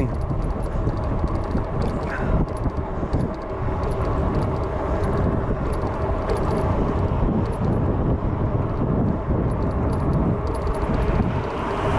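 Steady wind rushing over the microphone, with the tyre and road noise of a fat-tyre e-bike riding along a road.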